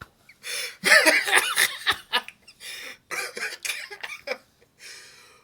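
A man laughing hard in a run of loud, uneven bursts, strongest in the first couple of seconds and trailing off toward the end.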